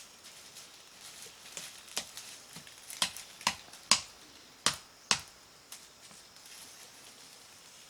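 A series of about six sharp knocks or clicks at uneven intervals, the loudest just before the middle, over a faint background.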